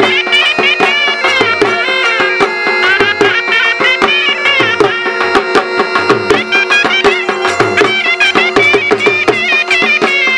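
Saraiki jhumar folk music: a dhol drum beaten with sticks in a steady rhythm, under a been, a reed wind instrument, playing a wavering melody over a steady drone.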